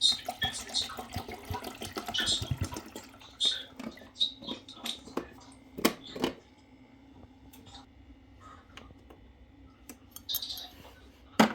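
Kitchen clatter: dishes and utensils clinking and knocking, busiest in the first few seconds, with two sharper knocks about six seconds in and two loud ones near the end. A steady low hum runs underneath.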